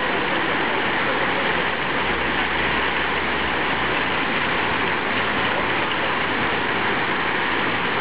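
Fountain jets splashing steadily into a pool: a continuous rush of falling water.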